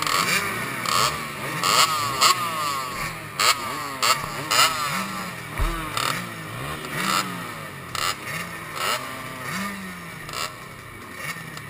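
Small two-stroke youth motocross bikes, a KTM 65 among them, revving at the starting gate: throttles blipped over and over, each rev a quick rising whine that drops back, several engines overlapping.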